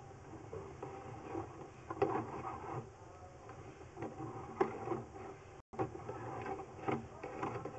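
Drain inspection camera and its push rod being pulled back through the pipe: irregular knocks, rattles and scrapes, with the louder knocks about two seconds in, near the middle and near the end.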